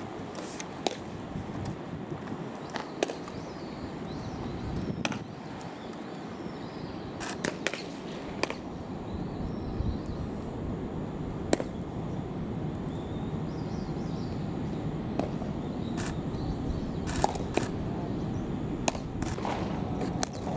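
Sharp pops at irregular intervals, a few in quick clusters, of baseballs smacking into leather gloves as players throw, over steady background noise.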